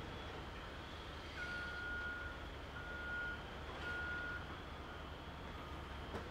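Backup alarm on a CAT 966F wheel loader reversing: three single-pitched beeps starting about a second in, the first about a second long, then fainter ones. Underneath is the steady low drone of the loader's diesel engine.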